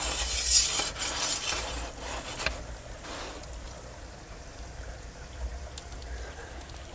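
Small metal pizza peel scraping and knocking on the stone floor of a wood-fired oven for the first three seconds, loudest about half a second in. After that, fainter crackling of the wood fire with a few sharp pops.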